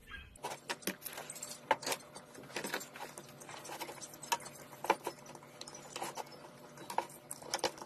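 Irregular light clicks and knocks of a Dongcheng battery pack being handled as its cell pack is worked out of the opened plastic case.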